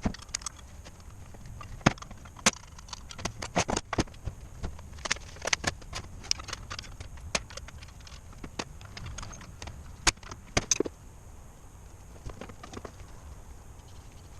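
Irregular sharp clicks and light knocks, about one or two a second and thinning out near the end, like hard objects being handled and set down.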